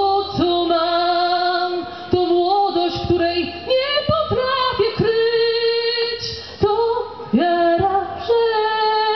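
A woman singing a cappella, unaccompanied, into a microphone, holding long notes in short phrases.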